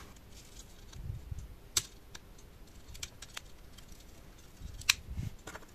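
Small plastic parts of a Zoom H3-VR recorder's casing being handled and worked apart by hand. It gives a handful of irregular sharp clicks, the strongest about two seconds in and near the end, with a few soft low bumps of the body being turned in the hands.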